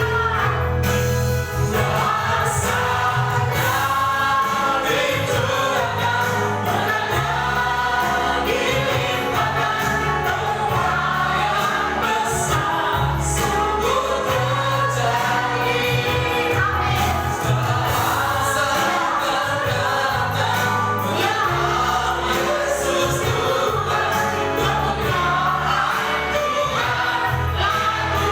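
Gospel worship music: a group of voices singing together with a band, over a bass line of long held notes that change every second or two.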